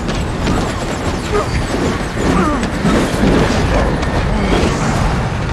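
Film fight soundtrack: a steady low train rumble under grunts and scuffling as two men struggle among carriage seats, with scattered knocks.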